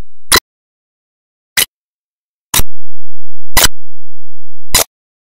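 Five sharp ticks about a second apart, with silence between them, like a ticking-clock sound effect laid under a slideshow.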